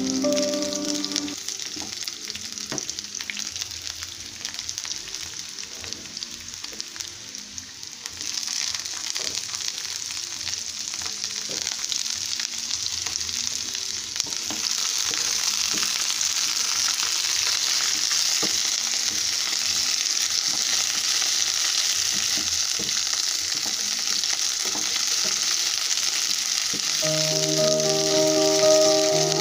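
Chopped onions and green peppers sizzling as they fry in oil in a frying pan, with a wooden spoon scraping and clicking against the pan as they are stirred. The sizzle grows louder about eight seconds in and again at about fourteen seconds.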